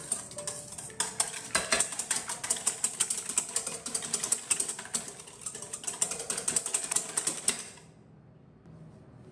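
Wire whisk beating an egg in a stainless steel bowl: rapid clicking and scraping of the wires against the metal bowl, stopping abruptly near the end.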